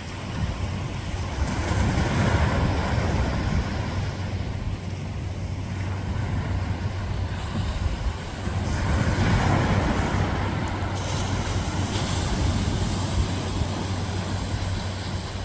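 Ocean waves breaking and washing up the beach, the surf swelling twice, about two seconds in and again around the middle, under a steady low hum.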